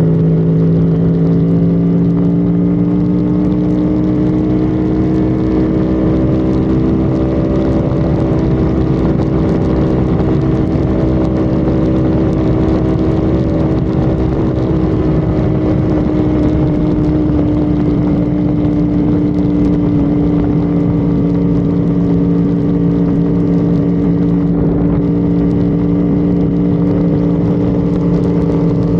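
Honda Civic FD's engine droning at sustained highway speed, its pitch holding nearly steady with only a slight drift, over road and wind noise.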